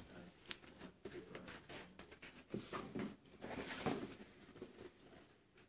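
Faint rustling of a heavy-duty nylon tackle bag being handled and turned over, with scattered light knocks and scuffs, a little louder about four seconds in.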